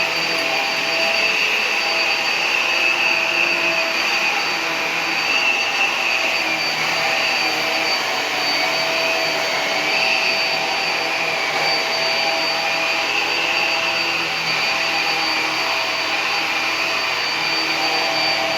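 Hoover PowerDrive Pet upright vacuum cleaner running at full power on carpet: a steady rush of air with a high, constant whine, swelling a little now and then as it is worked.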